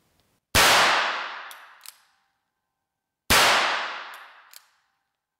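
Two shots from a Ruger Wrangler single-action .22 LR revolver, about three seconds apart, each echoing through the indoor range. About a second after each shot come two light clicks as the hammer is thumbed back for the next shot.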